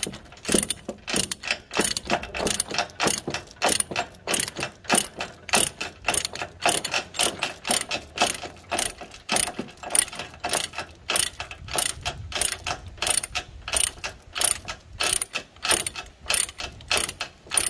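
A ratchet chain load binder is being cranked back and forth, its pawl clicking several times a second as it draws the tie-down chain tight.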